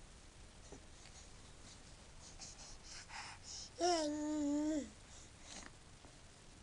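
Baby vocalizing: a few soft breathy sounds, then about four seconds in a single sustained 'aah' about a second long, wavering slightly in pitch and dropping as it ends.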